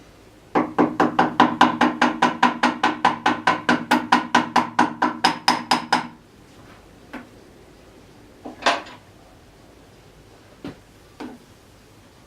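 A rapid, even run of sharp metallic taps, about five a second, each one ringing, on the cast parts of a Standard-Modern 10x20 lathe being worked with hand tools. The run stops abruptly about six seconds in, and a few single clinks and knocks of tools on metal follow.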